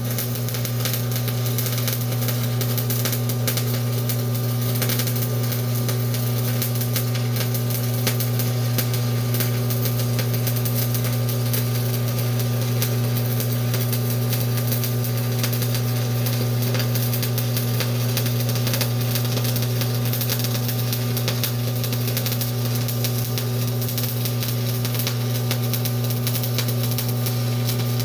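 Stick (shielded metal arc) welding arc burning steadily as a bead is run, a continuous crackle and hiss over a steady low hum. The unbroken arc shows the rod is being held at the right arc length for the arc to stay lit.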